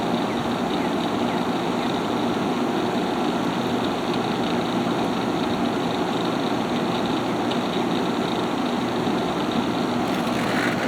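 Haier window air conditioner running on cooling, its compressor on and its blower pushing air out of the front grille with a steady, even rush and hum.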